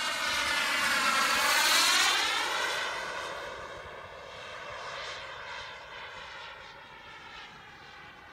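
VT80BL model jet turbine in an RC Mirage 2000 flying past. Its whining rush swells to a peak about two seconds in, with the tone sweeping as it passes, then fades. There is a smaller swell around five seconds.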